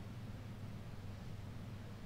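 Faint steady low hum and hiss with no voices: the room tone of a mosque congregation holding a silent prostration during prayer.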